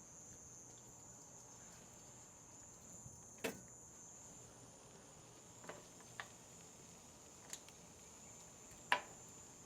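Insects, crickets by their steady high trill, chirping in the background, with a handful of light clicks and knocks, the loudest about three and a half seconds in.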